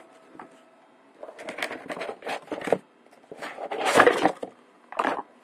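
Cardboard box and foam packing insert being handled: rustling and scraping in several bursts, the loudest about four seconds in.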